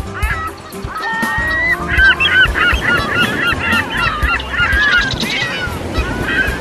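A flock of seagulls calling, many short overlapping cries, over background music.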